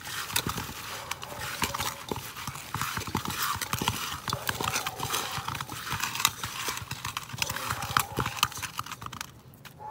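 Chopped onions, tomatoes, garlic and green chillies being mixed by hand with ajwain seeds in a pot: a dense, irregular crackle of clicks and rustling that dies away near the end.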